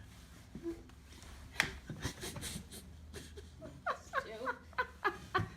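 A person laughing in a run of short, rhythmic bursts, starting about two-thirds of the way in, after a couple of faint knocks.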